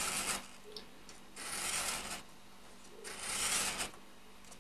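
A craft knife drawn along a metal ruler, scoring dense artist's cardboard: three scraping strokes about a second and a half apart.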